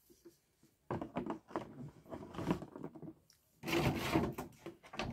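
A vinyl Funko Pop figure and its packaging being handled on a desk. About a second in come a run of knocks and scrapes, then a longer, louder scraping rustle.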